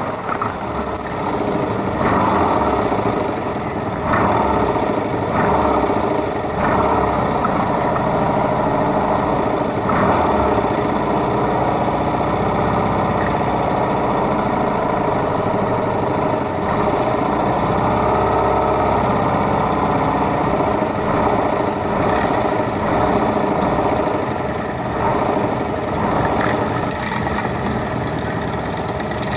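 Several motorcycle engines running at low speed and idling together, a steady lumpy engine din with pitches drifting up and down as throttles open and close.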